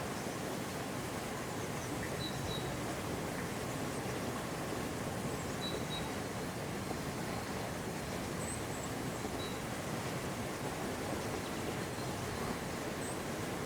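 Steady rush of water from a small waterfall, with faint short bird chirps scattered through it.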